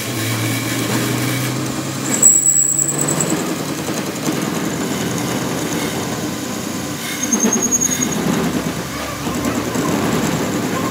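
Metal lathe running while a cutting tool faces the end of a spinning metal part, a steady machining noise over a low motor hum. A short, high-pitched squeal from the cut comes about two seconds in and again near eight seconds.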